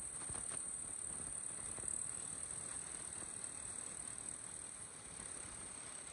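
Kubota M6040SU tractor's four-cylinder diesel engine running under load as it drives through deep paddy mud dragging a disc plough. A few faint knocks come near the start, and a steady high hiss sits over the engine.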